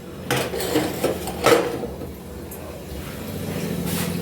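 Kitchen dishes and utensils being handled: a few separate sharp clinks and knocks. A steady low hum sets in about halfway through.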